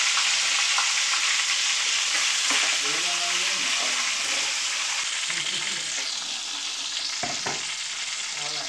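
Pieces of snakehead fish frying in hot oil in a wok: a steady, dense sizzle that slowly gets quieter.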